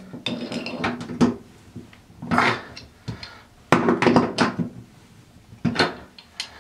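Metal tools clanking together in a few separate clatters: a screwdriver and a tub drain wrench are worked in the bathtub drain to tighten it, then the wrench is lifted out.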